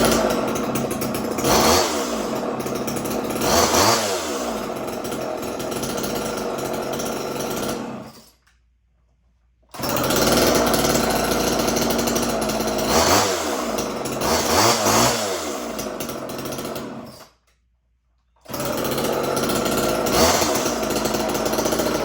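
Homelite XL two-stroke chainsaw idling, its throttle blipped to a brief rev every couple of seconds with the pitch dropping back each time. The idle has just been turned down so the chain no longer turns at idle. The sound cuts off abruptly twice for about a second and then comes back at full level.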